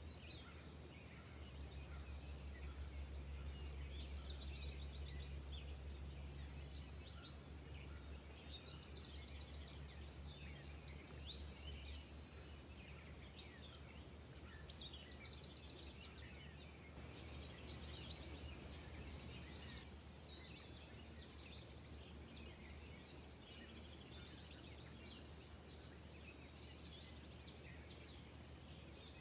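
Faint outdoor ambience of many small birds chirping and twittering, over a low steady rumble that is strongest in the first dozen seconds.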